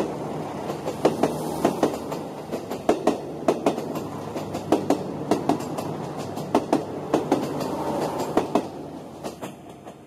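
Yufuin no Mori limited express diesel train passing close by, its wheels clicking over rail joints in pairs (clickety-clack) over a steady rumble from the cars. The sound fades near the end as the train moves away.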